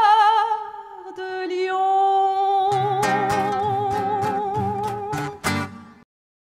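Live band music with a woman singing long held notes with vibrato. From about three seconds in, sharp accents from the band join at about three a second, and the music cuts off to silence about six seconds in.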